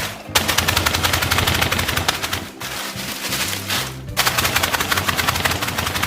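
Dry corn chips and crackers being crushed: a fast, dense crunching rattle in two long spells, with a short let-up about two and a half seconds in.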